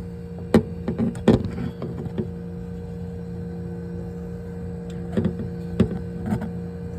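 Steady hum of a refrigerator's compressor and condenser fan running. A few light clicks and knocks come in the first second and a half, and again about five to six seconds in.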